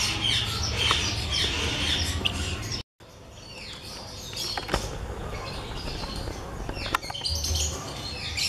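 Birds chirping and calling, busy and overlapping at first. After a brief drop-out about three seconds in, the chirps are sparser, with a couple of sharp clicks.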